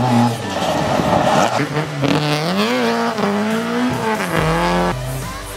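Mk2 Ford Escort rally car engine revving hard through a corner, its pitch climbing and dropping with the throttle and gear changes. It cuts off abruptly near the end.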